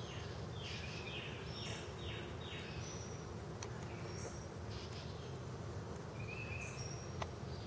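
Honeybees humming steadily around a hive during a package install, with songbirds singing over them. The birds give a quick run of about five down-slurred notes in the first few seconds, then scattered short whistles.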